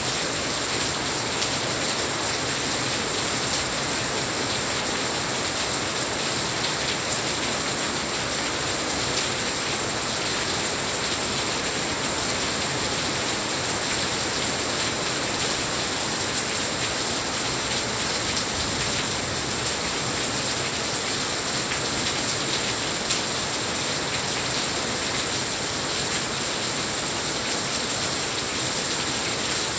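Heavy rain falling steadily: a dense, even hiss made of countless small drop impacts, with no let-up.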